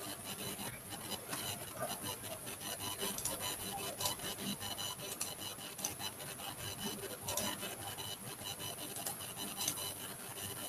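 Plastic stylus scratching and rubbing across a graphics tablet, with many short sharp taps and clicks scattered through it.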